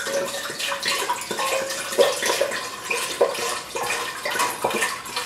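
Wine pouring from an upturned glass bottle into a stainless steel saucepan, a continuous splashing pour.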